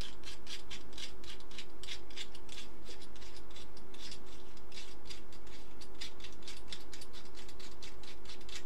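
The machined metal end cap of a Miniware ES15S electric screwdriver being unscrewed by hand on its fine thread: a quick run of small, faint scraping ticks, about four or five a second, over a low steady hum.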